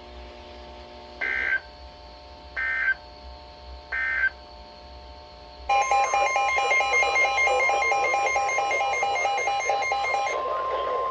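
Three short warbling digital data bursts of an EAS/SAME end-of-message code, then about six seconds in a loud steady NOAA Weather Radio alert tone starts, with a rapid pulsing electronic alarm beeping over it for about five seconds before the steady tone continues alone.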